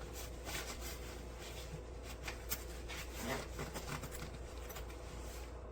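Rubbing and a few light clicks from handling a hardside carry-on suitcase, over a steady low hum.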